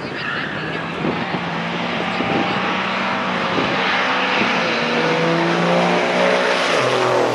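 Two diesel pickup trucks accelerating hard down a drag strip at full throttle, engines growing louder with a faint high turbo whistle above them. Near the end the engine note and the whistle drop in pitch as the nearer truck passes.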